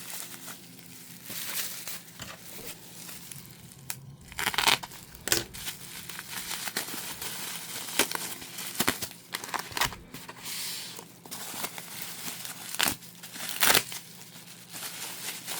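Packaging being torn open and crinkled by hand, with irregular sharp crackles and rustling as a delivery of trading cards is unwrapped.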